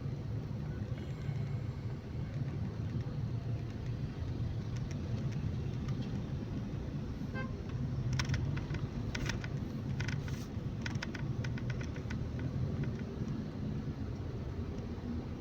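Car driving in traffic, heard from inside the cabin as a steady low rumble, with a quick run of small clicks about halfway through.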